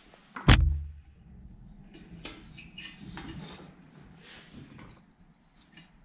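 A single sharp knock about half a second in, then faint small clicks and rustling of hands working on the propane heater's thermocouple wire connection.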